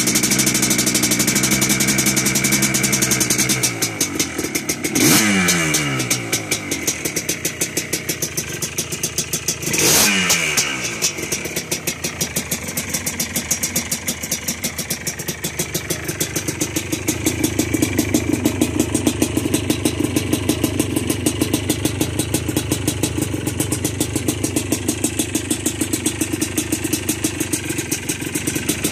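2001 Yamaha Blaster's single-cylinder two-stroke engine running just after a rebuild. Its throttle is blipped twice, about five seconds apart, each time falling back in pitch, and then it settles into a steady idle.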